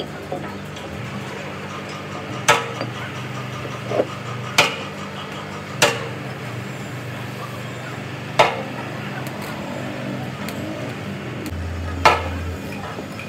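Metal struck with a hammer: five sharp strikes and one softer knock at uneven intervals, over a steady low machine hum.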